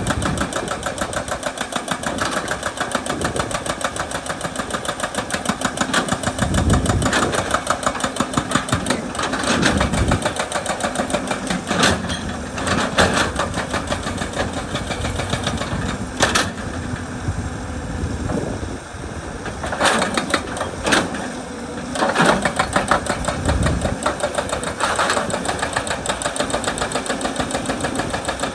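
Excavator-mounted hydraulic breaker hammering rock in a fast, steady run of blows over the running diesel engine, easing off for a few seconds past the middle.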